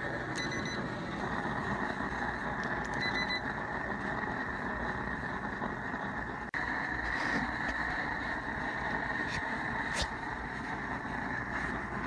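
Propane torch burner firing steadily into a small refractory furnace, a constant rushing hiss. Two short electronic beeps from an infrared thermometer come near the start and about three seconds in.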